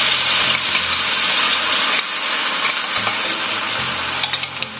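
Wet ground spice paste of shallot, garlic, ginger and chili sizzling loudly as it hits hot oil in a wok, throwing up steam. The sizzle eases a little about two seconds in, and a few light clicks come near the end.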